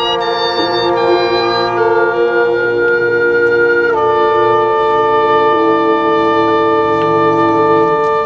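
High school marching band's winds and brass playing long held chords, moving to a new chord about two seconds in and again about four seconds in, then cutting off together at the end.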